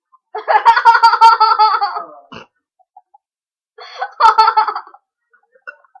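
A person laughing loudly in two high-pitched, pulsing bursts, a long one near the start and a shorter one about four seconds in.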